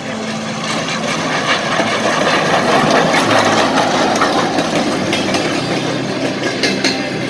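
Soviet L-class steam locomotive passing close by: a loud rush of steam and running-gear noise that swells to its loudest midway and eases off, with sharp clicks and clanks near the end as the tender's wheels roll past.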